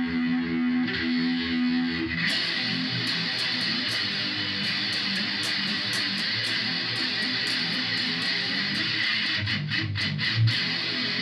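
Electric guitar, a Stratocaster, played through the Korg A5 multi-effects unit's flanger with its depth turned up. A held chord rings for about two seconds, then strummed and picked playing takes over.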